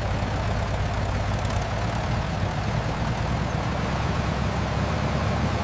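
An engine running steadily: a continuous low drone with a noisy rush above it.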